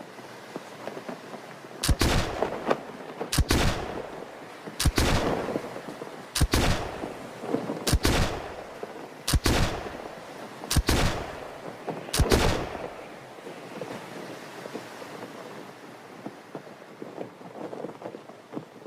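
An eight-round revolver fired eight times, a shot about every second and a half, each shot trailing off in an echo.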